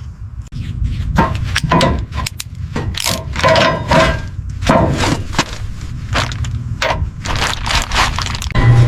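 A rapid, irregular series of sharp knocks, cracks and clicks, like hand work on a hard surface.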